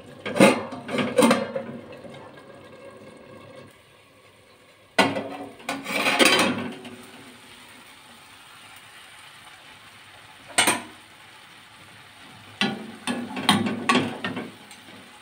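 Intermittent metallic clatter and sharp clinks from a steel lid and a spoon handled on an aluminium kadhai, in several short clusters with quieter gaps between.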